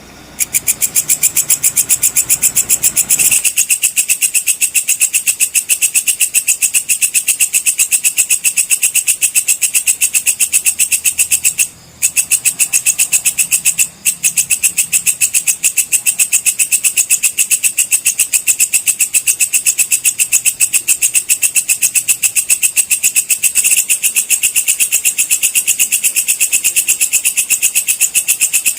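Walang kecek (belalang kecek) insect calling: a loud, high, rapidly and evenly pulsed trill, broken twice briefly about halfway through.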